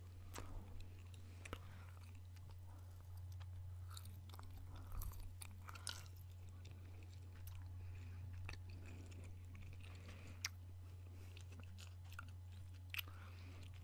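Close-miked gum chewing: soft wet mouth clicks and smacks at irregular intervals, over a steady low hum.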